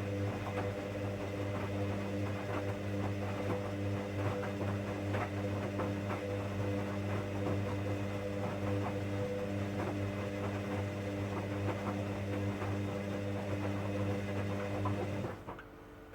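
Hoover washing machine running its wash cycle: a steady motor hum with a busy crackle of small clicks over it, which cuts off suddenly near the end.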